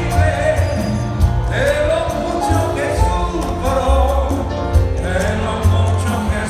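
Live Latin band music with a strong, rhythmic bass line and a sung melody, as heard from the audience in a large concert hall.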